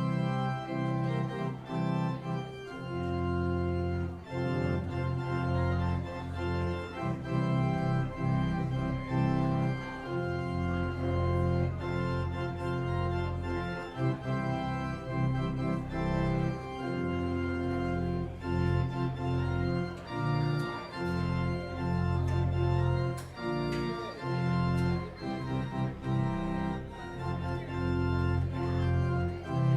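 Organ postlude: sustained chords in changing harmony over a strong bass line.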